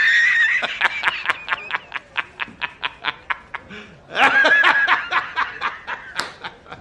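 A pitched-up, cartoon-style laughing sound effect: a high squeaky squeal that breaks into rapid snickering, about six snickers a second, then a second squeal about four seconds in and more snickering.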